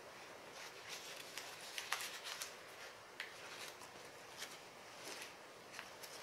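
Dried pollock skin crackling and rustling as hands handle and pull at it, a faint scatter of short, crisp ticks.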